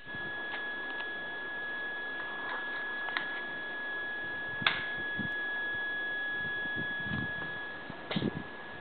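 A steady high-pitched tone, with a few sharp clicks of switches on a gas turbine test stand's control panel: the loudest click comes about halfway through and a quick cluster near the end. This is the panel being set up before the overhauled T53-L-13B turbine's first start.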